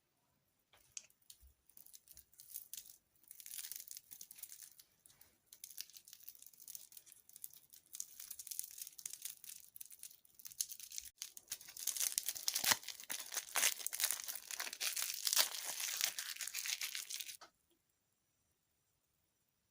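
Packaging crinkling and tearing in dense crackles, louder in the second half and then stopping suddenly.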